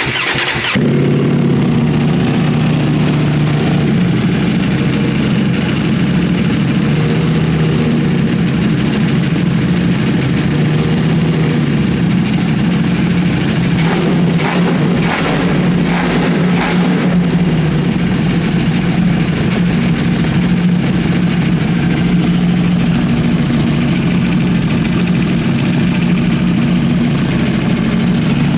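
Ducati Panigale V4 superbike's V4 engine firing up and then idling steadily and loudly.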